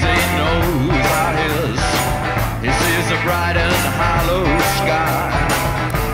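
Rock song with a sung vocal over a steady drum beat and bass.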